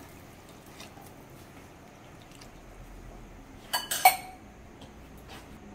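A metal spoon clinks twice against a metal pressure cooker pot about four seconds in. The second clink is the louder and rings briefly.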